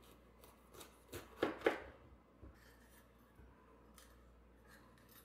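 Chef's knife cutting through a bell pepper on a plastic cutting board: a short run of crisp cuts, loudest about a second and a half in, followed by a few faint taps.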